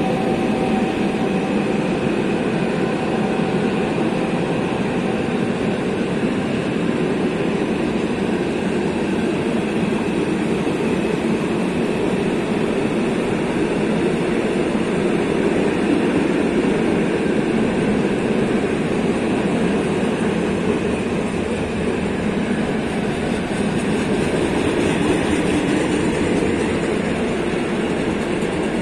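Freight train of steel-laden flat wagons rolling steadily past, with a continuous rumble and clatter of wheels on the rails. A faint steady tone fades out in the first few seconds.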